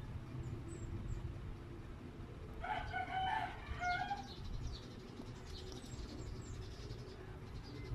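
A rooster crowing, one crow of about a second and a half some three seconds in, over a low steady hum.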